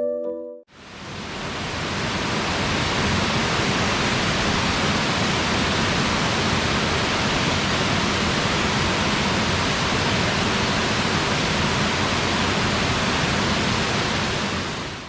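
Waterfall: a steady, even rush of falling water that fades in during the first second and stops at the end.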